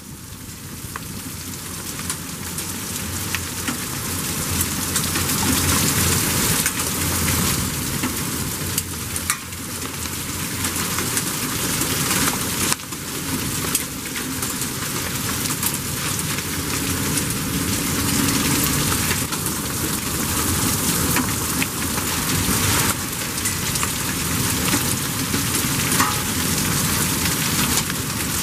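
Torrential thunderstorm downpour with hail: a dense, steady hiss of rain, dotted throughout with sharp ticks of drops and hailstones striking. It grows louder over the first few seconds.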